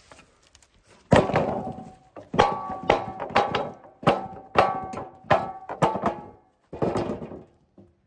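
Eastern red cedar slab knocked repeatedly against the steel bed rails of a Wood-Mizer LT15 sawmill: a series of about nine thunks, each with a brief metallic ring.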